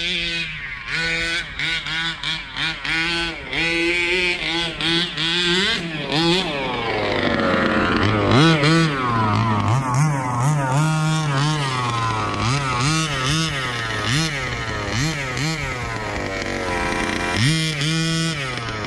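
Two-stroke gas engine of a Rovan 1/5-scale RC truck revving up and down as it is driven, with quick short throttle blips in the first few seconds and longer rising and falling revs from about six seconds in.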